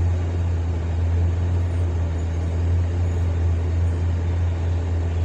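Hyundai excavator's diesel engine running steadily, a constant low drone.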